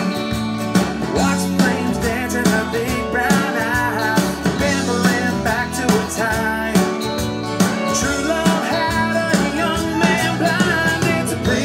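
A country-rock song plays at full mix, with guitars, a steady drum beat and a sung melody.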